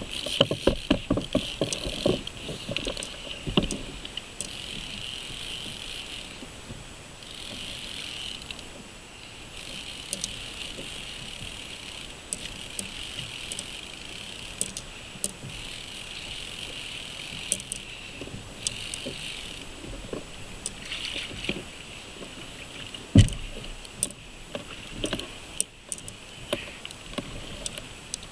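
Trolling reel being cranked in stretches of a few seconds, a steady whirr that stops and starts, over water lapping and knocking against a plastic kayak hull. One loud knock about 23 seconds in.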